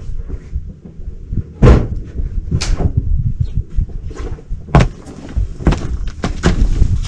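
Sharp knocks and thumps on a boat's deck, about five of them, over a steady low rumble.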